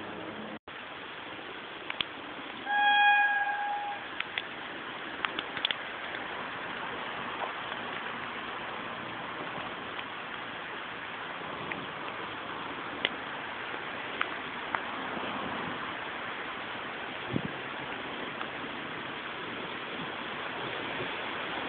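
A train horn sounds once, a single steady high tone lasting a little over a second, about three seconds in. Around it runs a steady rushing noise with a few faint clicks.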